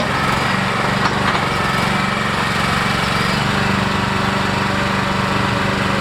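Small engine of a Harbor Freight mini excavator running steadily, with a couple of light knocks about a second in.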